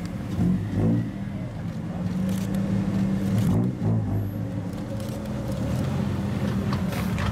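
Lowered cars creeping past at walking pace, one after another. Their engines run at low revs with a steady exhaust drone that dips briefly about halfway through.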